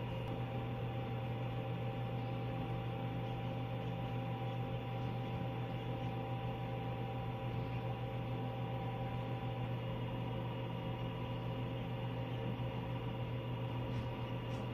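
Egg incubator's fan and motor running with a steady low hum, with a couple of faint ticks near the end.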